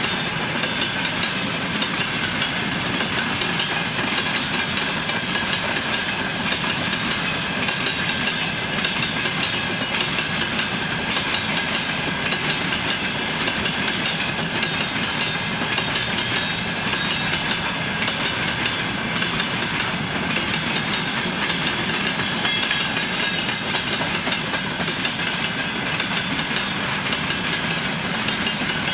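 Freight train wagons rolling past on jointed rails, their wheels knocking over the rail joints in a steady clickety-clack.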